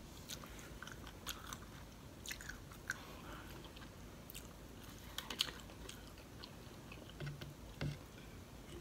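Close-miked chewing of battery fried shrimp: faint, scattered crunches and wet mouth clicks. Near the end come a couple of low gulps as she drinks from a bottle.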